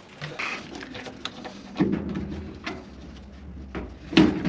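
Scattered clicks, knocks and scrapes of hands working around a washing machine, with a couple of louder bumps and a low rumble from about two seconds in.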